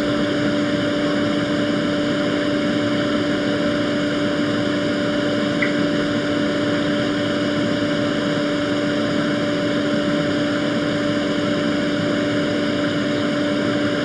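Steady rushing air and a constant low two-note hum from small electric blower fans at a soldering bench, running without change.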